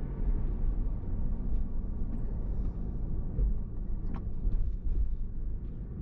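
Low, steady road rumble inside a moving car, with a few faint ticks about four seconds in.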